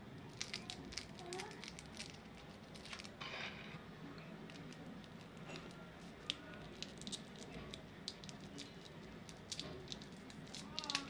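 Foil lollipop wrapper crinkling in the fingers and being snipped with small scissors: an irregular scatter of sharp crackles and clicks.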